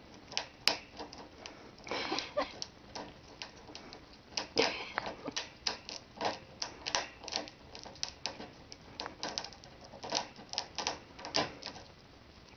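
Hamster's claws clicking and scraping on the wire bars of its cage as it hangs from the cage roof and shifts its grip: irregular light ticks and taps, with a couple of louder rattles of the wire about two seconds in and again midway.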